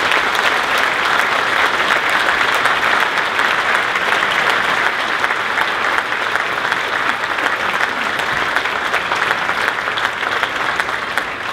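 Audience applauding steadily: many hands clapping together at the close of a speech.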